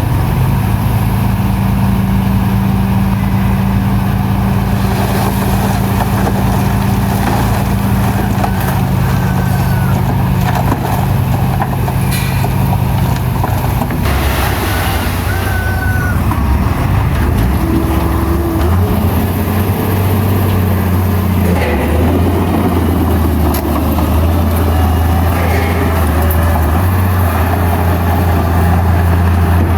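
Heavy diesel earthmoving machinery running under load, with the engine note changing pitch about halfway through and a few brief high squeaks.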